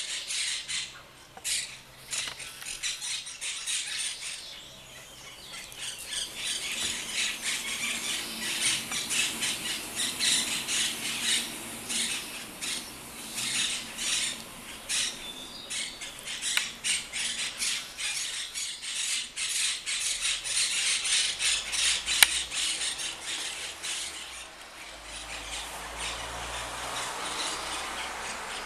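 Monk parakeets calling: a rapid, continuous run of short squawks, easing off briefly about four seconds in and again near the end.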